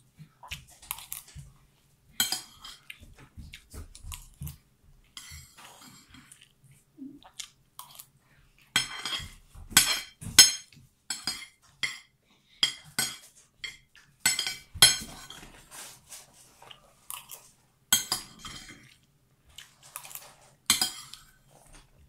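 A metal spoon clinking and scraping on a plate while scooping rice, in irregular sharp clicks, with chewing between.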